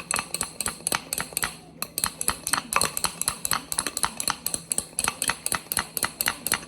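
A strainer used as a whisk, beaten fast against its container to whip instant coffee: quick rhythmic clinking, several strikes a second, with a short break about two seconds in.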